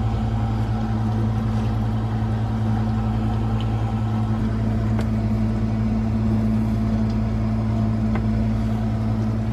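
Dishwasher's pump motor running with a steady hum, its wash cycle just started.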